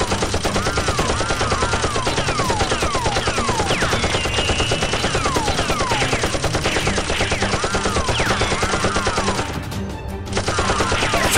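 Dubbed-in automatic gunfire sound effects: rapid continuous shots mixed with many falling, whizzing bullet-flyby sounds, standing in for the toy blasters' fire. The firing breaks off briefly about ten seconds in, then starts again.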